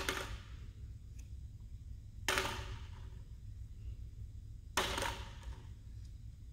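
Three sudden, short noisy bursts about two and a half seconds apart, each fading within about half a second, from M&Ms being sucked up through a paper straw and dropped into a plastic cup, one candy at a time. A steady low hum runs underneath.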